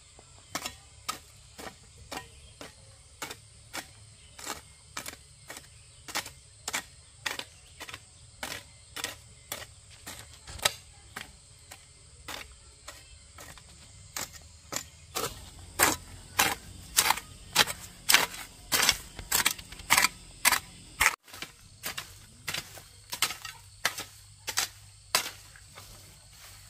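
A hoe chopping into dry garden soil in a steady rhythm, about two strokes a second. The strokes get louder a little past the middle, with a brief break about two-thirds of the way through.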